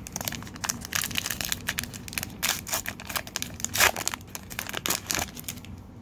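A foil-lined trading-card pack wrapper being torn open and crinkled by hand: a dense run of crackles, loudest just before four seconds in, stopping about five seconds in.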